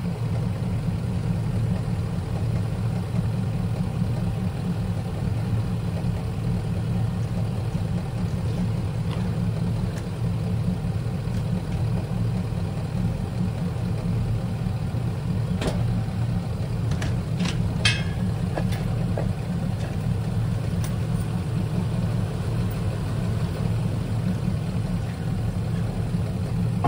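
A car's V8 engine idling steadily, with a few short sharp clicks about two-thirds of the way through.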